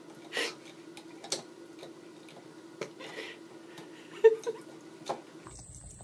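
An electric toothbrush buzzing steadily while a cat bites and chews on its brush head, with scattered clicks as the teeth knock against it and one brief louder noise about four seconds in. The buzz stops shortly before the end.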